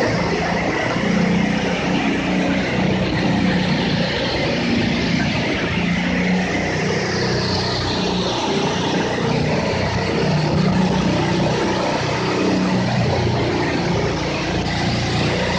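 John Deere 8345R tractor's diesel engine running steadily under load, together with the grinding of a Bugnot OBL'X 2720 stone crusher's rotor breaking up stones in the soil.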